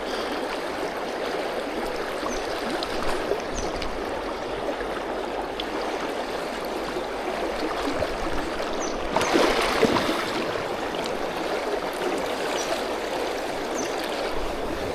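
Steady rush and gurgle of a fast-flowing river running over stones, with a brief louder swell of water noise about nine seconds in.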